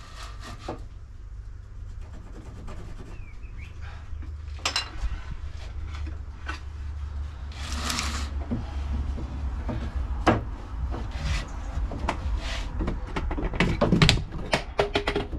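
Wooden batten being handled on a workbench: scattered knocks and scrapes of timber against timber and the bench, with a longer rubbing swish about eight seconds in and a run of louder knocks near the end. A steady low hum runs underneath.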